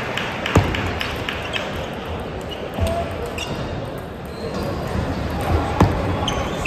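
Table tennis ball clicking off paddles and the table: a serve and short rally, with a sharp hit about half a second in and another loud hit near the end. Quieter clicks from other tables and hall chatter run underneath.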